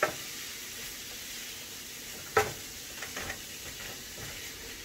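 Crab meat and pepper filling sizzling steadily in a nonstick frying pan while a wooden spoon stirs it, with a sharper knock of the spoon against the pan at the start and another about two and a half seconds in.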